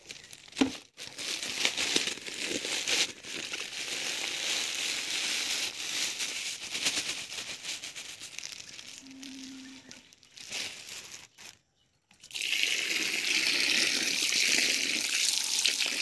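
Plastic bag crinkling as sand is tipped out of it into a plastic bucket. About twelve seconds in, water from a tap starts running steadily onto the sand in the bucket to rinse it.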